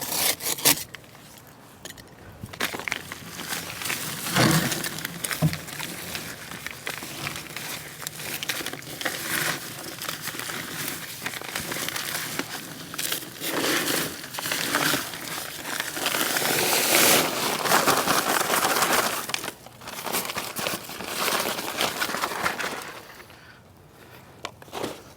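Paper bag of concrete mix crinkling and rustling as it is handled and opened, with scraping and shuffling, in irregular loud swells.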